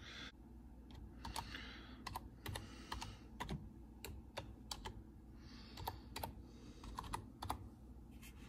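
Typing on a computer keyboard: faint key clicks in short, irregular runs.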